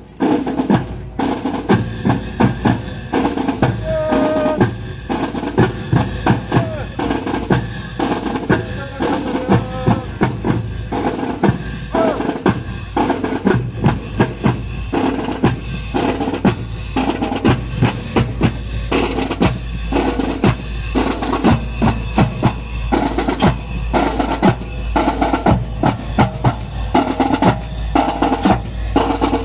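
Drum cadence played continuously, with snare drum rolls and bass drum beats in a fast, even rhythm.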